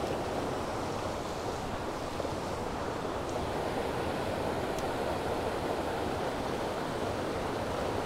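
Steady rushing of a small creek flowing over rocks.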